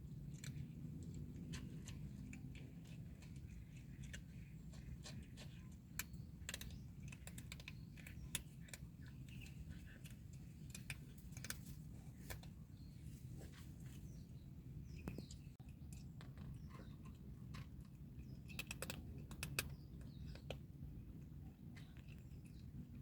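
Cats crunching dry kibble: irregular crisp clicks, in clusters, over a steady low hum.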